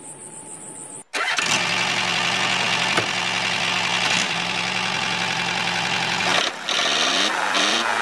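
Homemade model mini tractor running steadily: a dense, engine-like drive sound that begins abruptly about a second in and dips briefly near the end.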